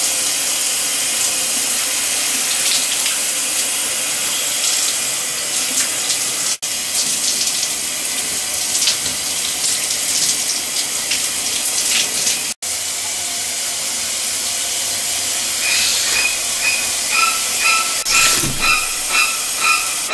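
Shower spray running steadily, a hiss of water on skin and tile, cutting out for an instant twice. In the last few seconds a repeating high tone begins, pulsing about twice a second.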